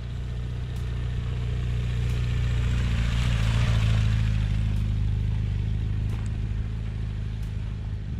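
Large adventure motorcycle approaching along a dirt track and passing close by about three to four seconds in. Its engine and tyre noise swell, then fade away, over a steady low engine drone.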